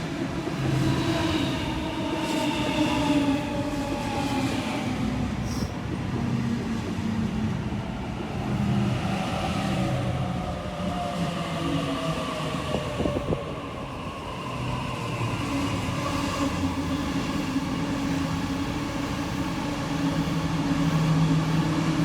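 Sydney Trains Waratah A-set electric train pulling into the platform, its traction motor whine falling in pitch as it slows, then settling into a steady hum near the end.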